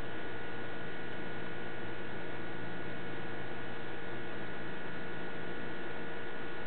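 Steady electrical hum over a constant hiss, unchanging throughout.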